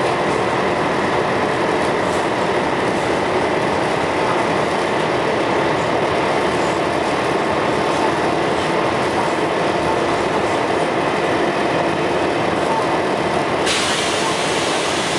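Scania L113CRL bus running with a steady rumble. Near the end a loud hiss suddenly cuts in and keeps going; this is the bus's recurring hissing.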